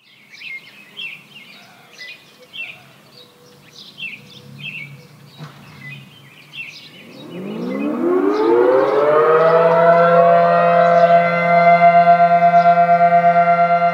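Birds chirping, then about seven seconds in two outdoor warning sirens, a Federal Signal Model 5T and a Federal Electric Model 3, wind up together, rising in pitch and settling into a steady wail of several tones at once. Near the end the combined sound pulses quickly in loudness. This is the town's daily noon blast signal.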